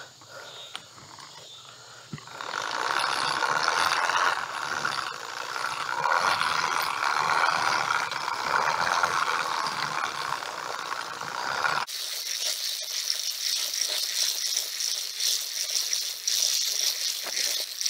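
Dense rustling and rattling that starts about two seconds in, from walking through overgrown grass and weeds while scattering seed. About twelve seconds in it changes suddenly to a higher, hissier crackle.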